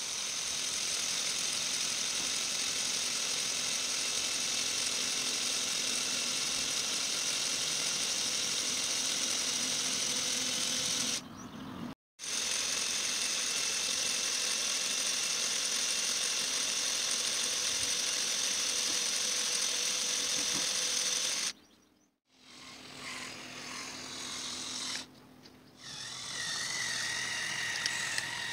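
Small electric motors and gearing of a Lego Technic disc harrow model whining steadily as they fold the harrow up. The sound cuts out briefly about eleven seconds in and again about twenty-two seconds in. It comes back quieter near the end.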